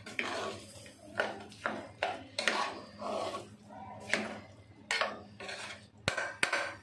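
Metal ladle scraping and knocking against the inside of an aluminium pressure cooker while stirring mutton and onions, in irregular strokes about once a second.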